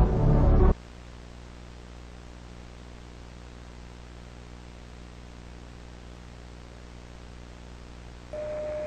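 Music cuts off less than a second in, leaving a steady hiss with a low hum underneath. Near the end a single steady tone comes in.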